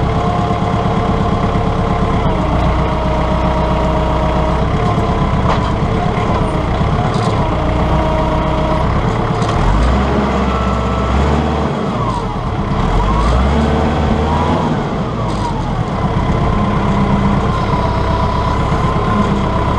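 Compact tractor engine running steadily under a constant whine, while the front loader works the hay grapple. Around the middle the engine note and the whine dip and rise a few times as the loader takes the load of the bales.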